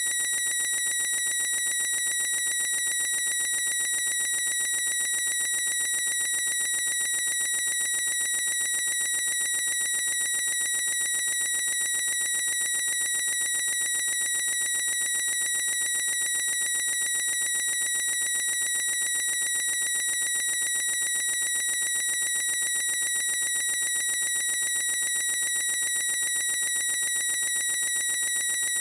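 A person's high-pitched squeal, stretched into one unbroken, unchanging tone with no breath or break, like a looped recording.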